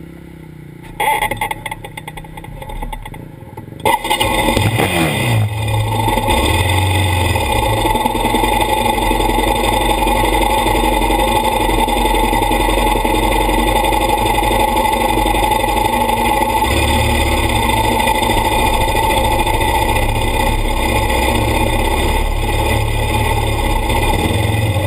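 ATV engine running close by. It comes in loud about four seconds in, its pitch falls briefly and settles, and it then runs steadily with a strong low hum. Before that there are only faint knocks.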